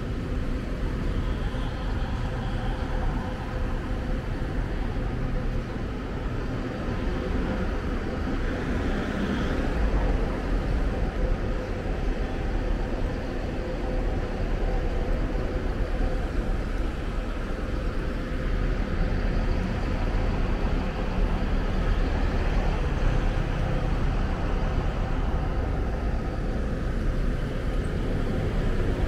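Steady road traffic noise with a low rumble, vehicles running past.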